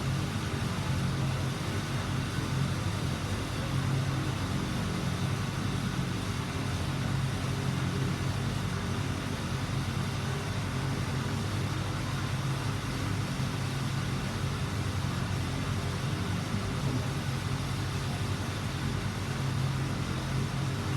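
Steady low mechanical hum, like a motor or engine running continuously, with no distinct events standing out.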